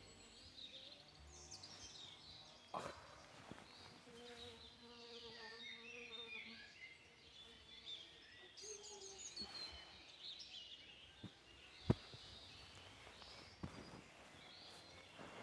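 Quiet outdoor ambience: faint scattered bird chirps, with an insect buzzing for a few seconds near the middle. A single sharp click comes about twelve seconds in.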